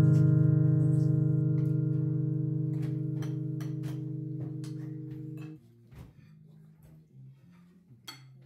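Background music: a single guitar chord rings out and fades slowly, stopping about five and a half seconds in, after which only faint sound remains.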